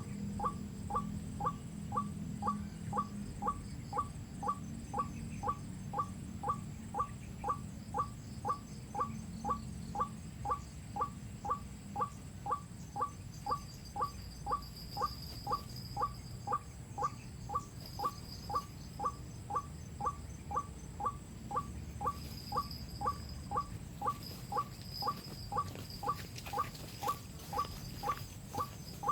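White-breasted waterhen call played as a lure from a phone, a short call repeating steadily about twice a second. Faint higher-pitched calls come in around the middle and later on.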